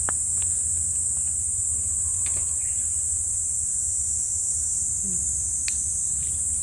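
Steady, high-pitched chorus of insects chirring without a break, with a few sharp clicks at the very start, about two seconds in and near the end.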